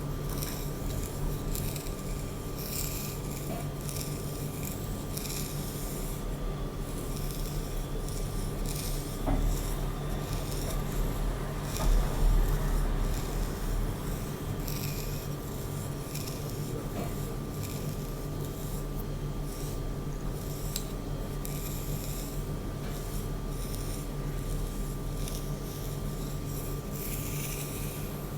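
Hair being brushed or combed: soft, irregular strokes of bristles or teeth drawn through hair, over a steady faint electrical hum. A louder low bump about twelve seconds in.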